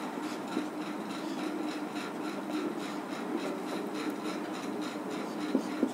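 Marker writing on a whiteboard: the tip rubbing and scraping across the board in short strokes as letters are written.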